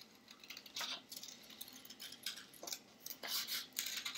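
Scissors snipping through a folded sheet of paper, several short cuts at uneven intervals.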